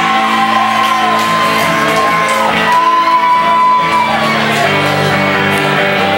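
Live rock band: a woman sings long held, belted notes into a microphone over electric guitar and a steady band accompaniment.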